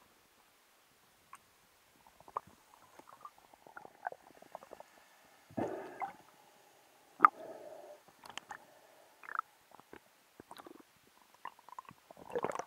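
Irregular clicks and knocks heard underwater, most likely spearfishing gear such as the speargun and spear shaft knocking as they are handled. There is a short gurgling rush of water noise about six seconds in, and one sharp, louder click just after seven seconds.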